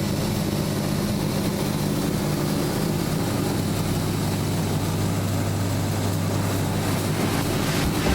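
KMG-style belt grinder running steadily at speed, its motor giving a constant low hum with no grinding against it.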